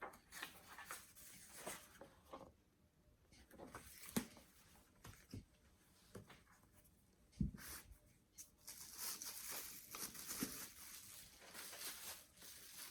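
Faint handling of hardcover books: scattered light clicks and knocks, a soft thump about seven and a half seconds in, then a faint rustle of paper and covers as the books are opened and moved.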